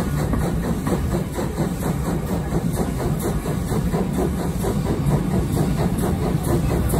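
Steam locomotive working up a steep grade, its exhaust beating in quick steady pulses, heard from an open coach window together with the running noise of the carriages on the rails.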